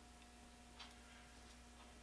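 Near silence: a few faint, irregular small metal clicks as a tiny set screw is worked into a three-jaw lathe chuck body, over a faint steady electrical hum.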